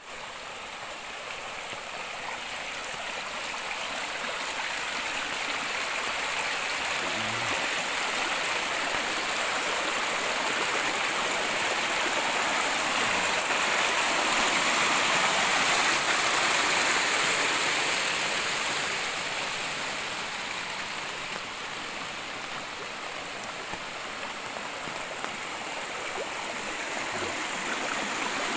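Water running down a small rocky irrigation ditch, a steady rush that swells to its loudest about halfway through and then eases off.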